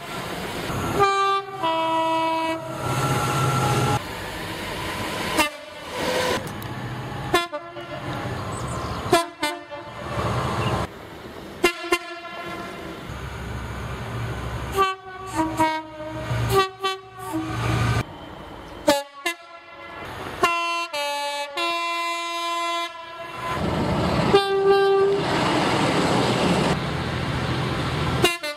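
British main-line train horns in a rapid run of short clips cut one after another. They are mostly two-tone horns stepping between a high and a low note, with the rumble of passing trains between the blasts.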